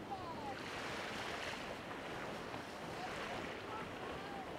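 Steady wind on the microphone and small waves washing along the shore. The hiss swells twice, with a few short, faint gliding calls over it.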